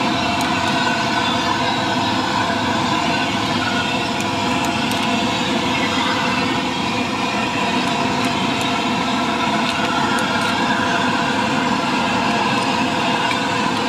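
A steady, unchanging engine drone, with a few faint light clicks of metal utensils on top.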